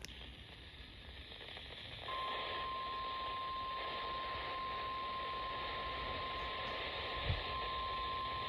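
Weather-radio receiver hissing with static; about two seconds in, a steady single-pitch alert tone near 1 kHz starts and holds over the hiss, typical of the NOAA Weather Radio 1050 Hz warning alarm tone. A brief low thump sounds near the end.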